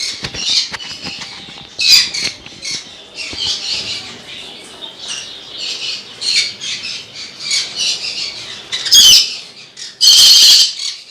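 Green-cheeked conures squawking repeatedly in short harsh calls, ending in a couple of louder, longer screeches near the end; the bird is frightened by a stranger at the cage.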